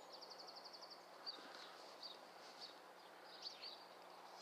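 Faint, high-pitched chirping of small birds: a quick trill of about ten even notes in the first second, then scattered single chirps.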